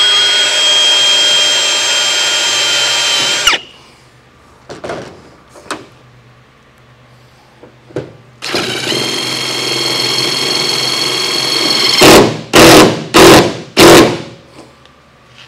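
Cordless drill running against a sheet-metal car roof seam, drilling through the top layer and driving a self-tapping screw that draws the lower layer up to close the gap. There are two steady whining runs, a few light clicks between them, and four short, loud bursts near the end.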